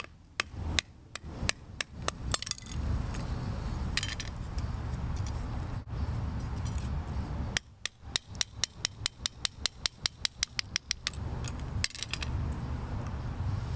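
Wooden baton knocking on the spine of a knife to split fatwood: a series of sharp knocks, about three a second, for the first two seconds or so, then after a pause a faster run of lighter knocks, about six a second, for some three seconds.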